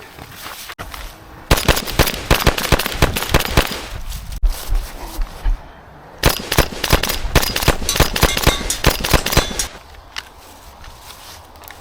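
Airsoft guns firing in two long strings of rapid shots, the first starting about a second and a half in and the second starting about six seconds in, with short quieter spells between them.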